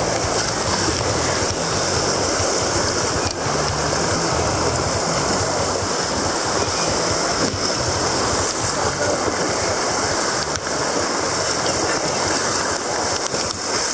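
White-water rapids rushing steadily around an inflatable kayak, with a few faint knocks from paddle strokes and a low, uneven rumble underneath.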